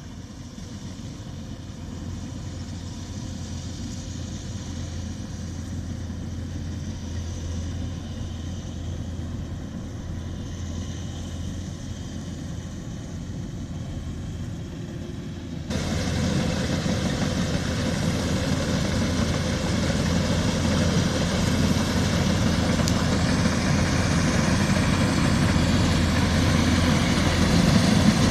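Engine of a rice harvesting machine running steadily with a low hum. About halfway through the sound jumps suddenly louder and fuller, then grows gradually louder toward the end.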